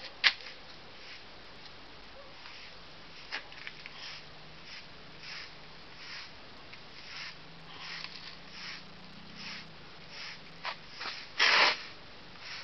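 Dry hand brush sweeping crumbs off a freshly carved cement-mortar surface: a steady series of soft swishes, about two a second. A sharp click comes just after the start, and a louder burst of noise near the end.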